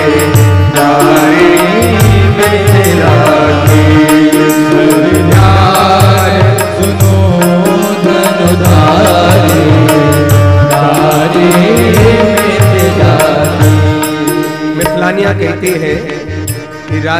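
Devotional bhajan music: singing over a repeating hand-drum rhythm with held instrumental tones. The music grows softer near the end.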